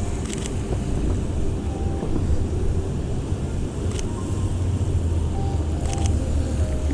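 Low steady rumble of city street traffic, strongest about four to six seconds in, with wind on the microphone and a few faint clicks.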